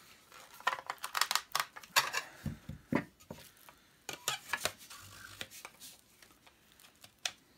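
Hard plastic vacuum cleaner attachments being handled and fitted: a run of irregular clicks and knocks, busiest in the first few seconds.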